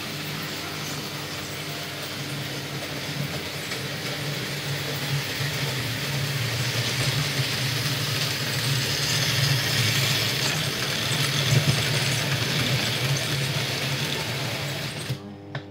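Märklin model train running on metal three-rail track: a steady motor hum with wheels rattling over the rails. It grows louder as the train comes close, then stops abruptly near the end.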